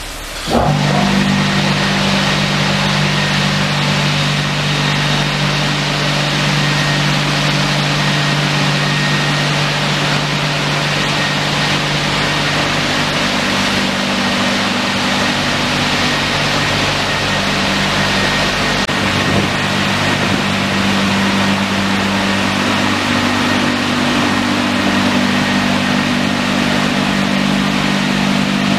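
Dryer blowers of a WashTec SoftCare Pro rollover car wash starting up about half a second in, then running steadily through the drying pass: a loud rush of air over a steady motor hum.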